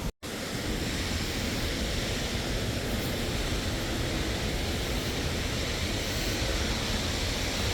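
Waterfall's falling water, a steady even rushing.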